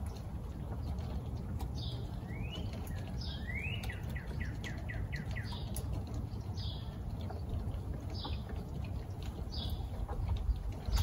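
Wild birds calling: a short high call repeated about once a second, and two to five seconds in a couple of rising whistles followed by a quick run of about seven notes. Under them a steady low rumble with scattered faint clicks.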